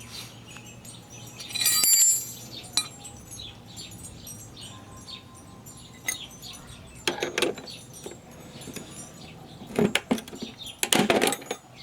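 Steel wrenches clinking and clanking against a laminated steel padlock as they are worked into the shackle and levered apart. There is a loud clatter about two seconds in, more around seven seconds, and the loudest bursts near the end as the shackle breaks.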